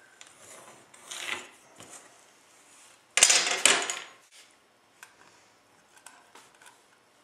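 Pencil drawn along a steel rule across a hardwood block, a soft scratching, then about three seconds in a sudden, louder scraping rub lasting about a second. A few light clicks and taps follow near the end as a tape measure is handled.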